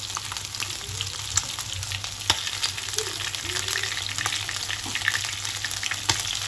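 Masala-coated chicken drumsticks shallow-frying in hot oil in a pan: a steady sizzle with scattered crackles and a few sharp pops of spitting oil, as the marinade cooks until its raw smell is gone.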